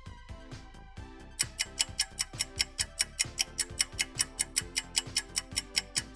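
Quiz countdown timer's clock-ticking sound effect: rapid, even ticks, about five a second, starting about a second and a half in over quiet background music.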